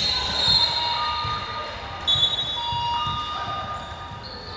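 Indoor basketball play: sneakers squeaking on the hardwood court in short high squeals, over irregular thuds of the ball bouncing and players' footsteps.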